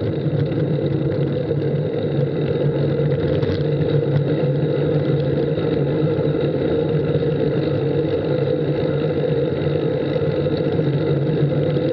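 Steady, loud droning ride noise, wind and road noise picked up by a bicycle-mounted camera while riding.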